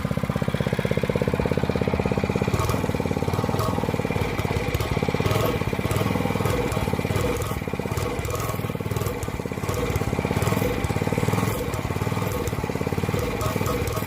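Small single-cylinder pit bike engine running steadily at idle, with irregular rattling and clicking over it from about two and a half seconds in.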